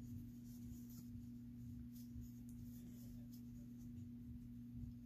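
Quiet room tone with a steady low hum, over faint soft ticks and rustles of cotton yarn being worked with a crochet hook.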